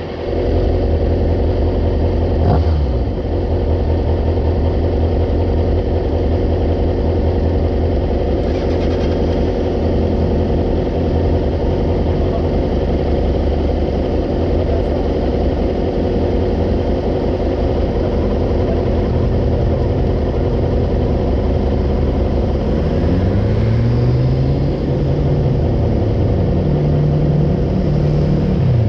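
Motorcycle engine running steadily under way, its pitch dropping briefly near the start and rising and falling several times toward the end as the revs change.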